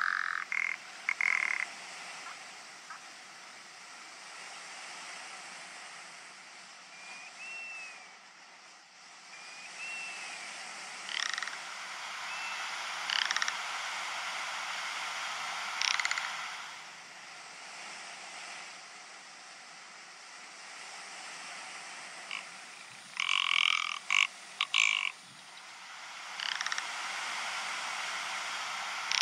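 Rock ptarmigan croaking calls: short rough bursts scattered through, the loudest cluster about three-quarters of the way in. They sit over a steady outdoor hiss, with a few brief thin arched notes.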